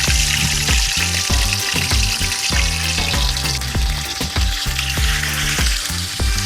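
Whole tilapia deep-frying in a pan of hot cooking oil, a loud, steady sizzle. The sizzle is still strong, which by the cook's rule (the fish goes quiet when cooked) means it is not yet done. Background music with a steady bass beat plays under it.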